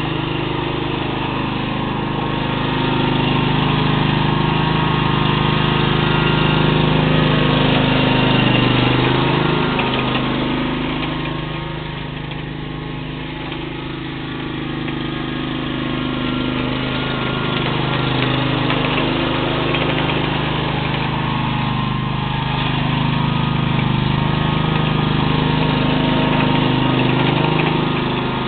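Toro Tru-Trak commercial mower's engine running steadily while it mows. It grows fainter around the middle as the mower moves off, then louder again as it comes back.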